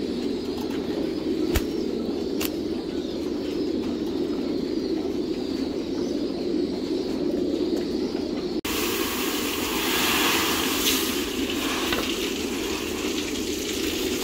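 A steady low background hum with two sharp clicks early on, then, about two-thirds of the way in, the hiss of grain pouring from a woven sack into a wooden bin of grain.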